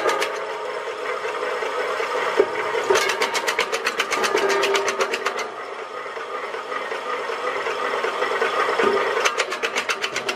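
Machine running steadily, with two spells of rapid, evenly spaced clattering knocks at about eight a second: one starting about three seconds in and lasting a couple of seconds, one near the end.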